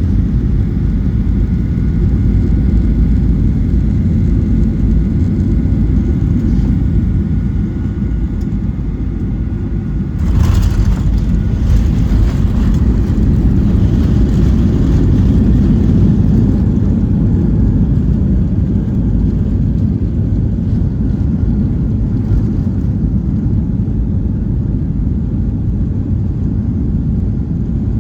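Cabin noise of a Boeing 737-900 landing: a steady low rumble on final approach, a brief jolt at touchdown about ten seconds in, then a louder rumble as the jet rolls out and slows on the runway.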